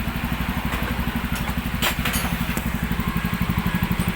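Yamaha Mio 125 scooter's single-cylinder 125 cc engine idling steadily and evenly, freshly rebuilt with lapped valves. The steady idle shows the loose compression that made it stall at idle has been cured.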